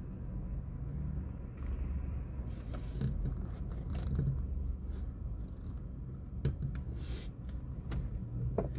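Low, steady rumble of a car idling while stopped in traffic, heard from inside the cabin, with a few small clicks and scrapes scattered through it.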